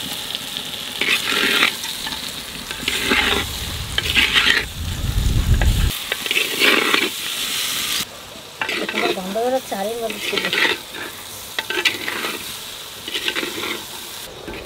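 Chunks of potato and raw jackfruit tipped into hot, fried spice paste in a clay pot and stirred with a metal spatula. The food sizzles, and the spatula scrapes the pot in repeated short strokes about every second or so. A short warbling call sounds around ten seconds in.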